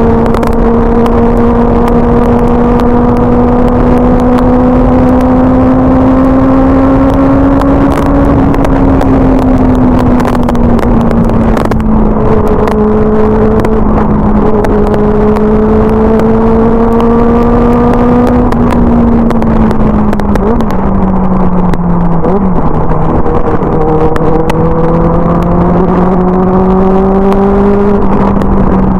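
Benelli 600i's inline-four engine through an aftermarket IXIL exhaust, cruising on light throttle. Its pitch creeps up, drops about a third of the way in and again about two-thirds in, then climbs gently. Wind buffets the microphone throughout.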